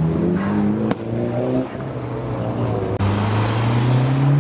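Car engines in slow traffic: one revs with its pitch rising, broken by a sharp crack about a second in. Near three seconds another engine comes in loud and climbs steadily in pitch as it accelerates.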